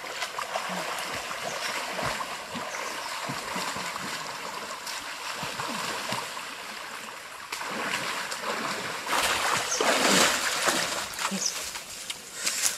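Water splashing and sloshing as a person wades through a shallow stream, louder for a couple of seconds about nine seconds in.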